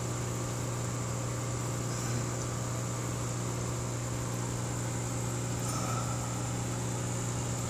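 Aquarium equipment running: a steady low electric hum with an even hiss of air and water, from air pumps driving sponge filters.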